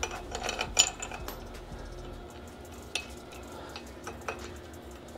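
Metal clinking and knocking as a flange is spun onto a threaded black pipe with a pipe wrench: a quick cluster of clinks in the first second, then a few single knocks.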